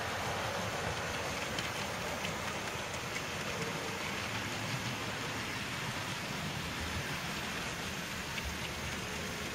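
Model railway trains running on the layout's track, several at once: a steady rattle and rush of small wheels and motors.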